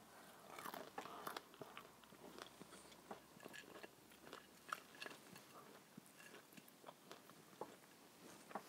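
Faint close-up chewing of fried, breaded food, with scattered small crunches and wet mouth clicks.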